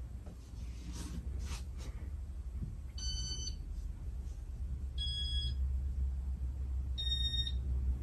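Casablanca Nouvelle ceiling fan with an XLP2100 motor running with a steady low hum. Three short electronic beeps sound about two seconds apart, each about half a second long and each at a slightly different pitch.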